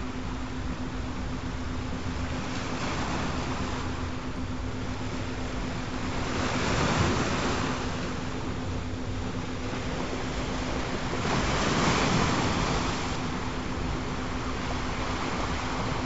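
Ocean surf: waves washing in with a steady rush, swelling twice, about seven seconds in and again around twelve seconds. A steady tone hums underneath.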